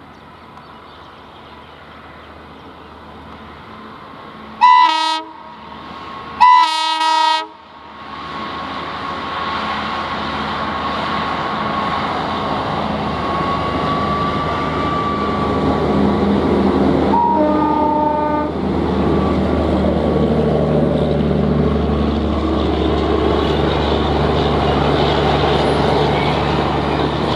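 Twin WDG-3A diesel locomotives with ALCo 251 engines approaching and passing slowly at the head of an express. They give two multi-note horn blasts a few seconds in and a third shorter blast later. The engine and wheel noise swells to a steady loud run as they go by.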